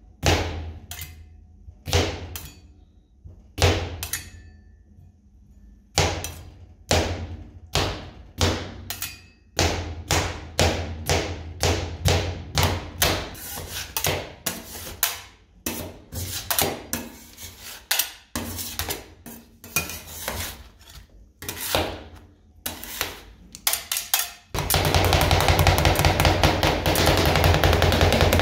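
Metal spatulas chopping cucumber pieces into ice cream base on a metal cold plate for rolled ice cream: sharp clacks of the blades hitting the plate, spaced out at first and coming closer together. About 24 seconds in, both spatulas start chopping fast and continuously, louder.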